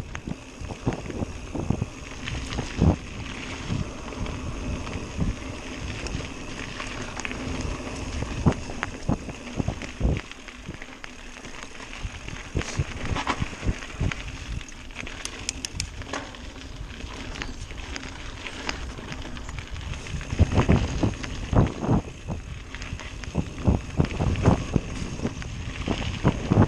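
Mountain bike riding a singletrack trail: steady rumble of the tyres on the dirt, with irregular knocks and rattles from the bike as it hits bumps, heaviest near the end. Wind noise on the microphone.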